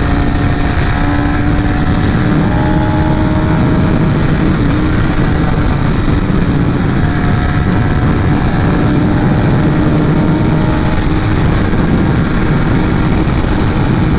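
Carbureted motorcycle engine running at a steady cruise while riding, one even engine note over a dense, constant rush of noise.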